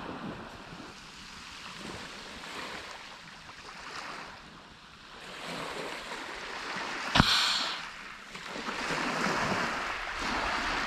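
Compressed-air bait cannon firing once about seven seconds in: a sharp pop followed by a short rush of air. Surf washing on the shore and wind on the microphone underneath.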